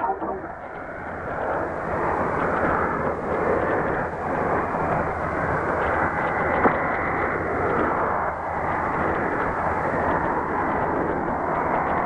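Drake R8A shortwave receiver putting out a steady, muffled hiss of static on 17680 kHz. The station's carrier is still on the air, with no programme on it after sign-off.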